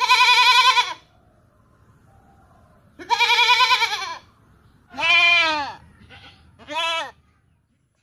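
A goat bleating four times. The first two bleats are long and quavering, the third arches up and down, and the last is short.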